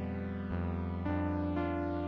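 Background music: sustained keyboard chords that change every second or so.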